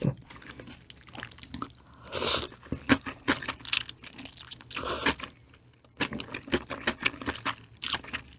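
Close-miked chewing of wet, juicy food: moist mouth clicks, smacks and squelches, with two louder wet stretches about two and five seconds in.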